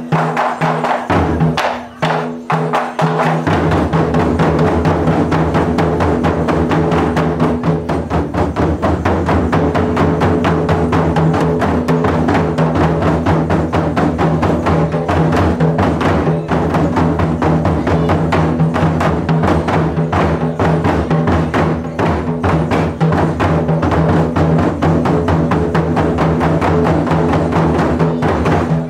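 Taiko drum ensemble playing live: a few separate drum hits, then about three and a half seconds in the full group comes in with fast, dense drumming that keeps going.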